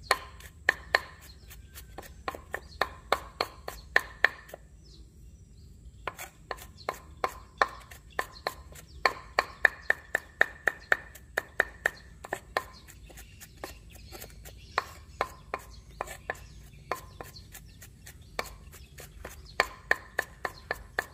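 Broad-bladed kitchen knife mincing garlic on a thick wooden log chopping board: sharp knocks of the blade on the wood in runs of about three or four a second, with short pauses, the longest about four and a half seconds in.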